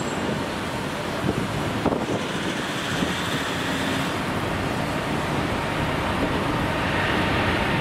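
Steady jet engine noise from a widebody airliner rolling past, growing slightly louder in the second half.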